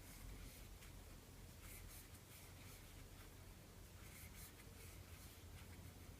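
Near silence with faint, soft rustles of yarn drawn through stitches by a crochet hook, every second or so, over a low steady hum.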